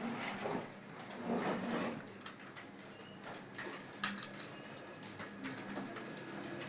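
Touch-typing on a computer keyboard at about 48 words a minute: a fast, uneven run of key clicks.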